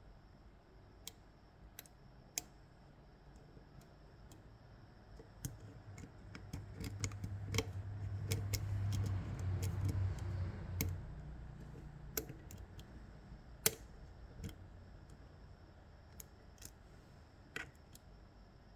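Scattered small metallic clicks of lock picks working the pins of an Ezcurra DS-10 lock. A low hum swells in the middle and fades.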